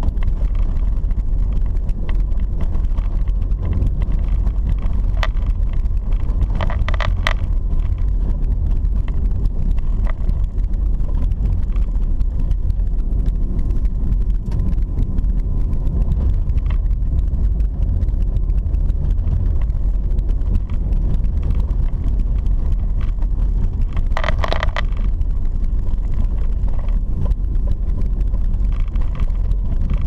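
Car driving on a dirt road, heard from inside the cabin: a steady low rumble of tyres and engine with small rattles and knocks. Two short higher-pitched sounds come about seven seconds in and again about twenty-four seconds in.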